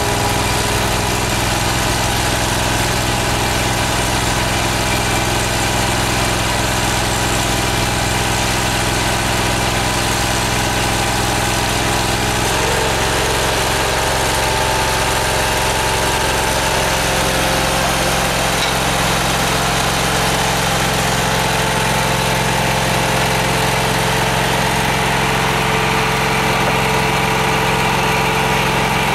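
Small engine of an M-50 hydraulic stone splitter running steadily at idle; its tone shifts slightly about twelve seconds in.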